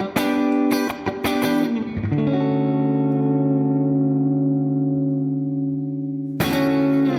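Electric guitar on a clean tone through a pedalboard: a few strummed chords, then one chord left ringing for about four seconds, then strummed again near the end.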